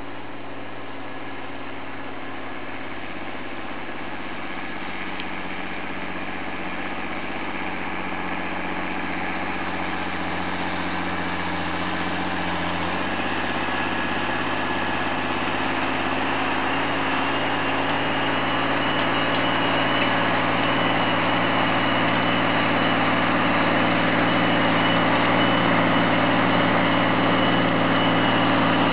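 John Deere 8220 tractor's six-cylinder diesel engine running steadily under load as it pulls a disc harrow through the soil. It grows steadily louder as the tractor comes closer, and its low note shifts a little about halfway through.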